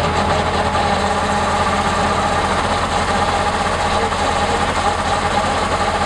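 Gostaresh Machine rice combine harvester running steadily, its engine and machinery humming as it unloads threshed rice through its discharge tube into a sack.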